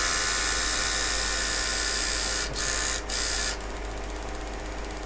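HP9845B tape cartridge drive running its tape on a read test, a loud high whine with two brief dropouts. About three and a half seconds in, the whine falls to a quieter steady running sound. The drive keeps running instead of stopping, a sign that the repaired tach board is now reading data off the tape.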